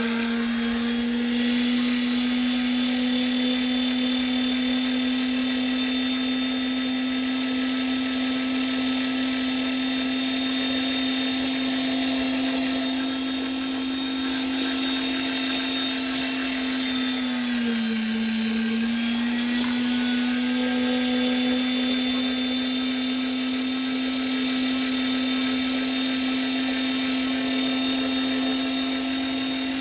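Electric meat grinder motor running steadily while grinding raw steak, a constant hum. About eighteen seconds in, its pitch sags briefly as the motor slows under load, then recovers.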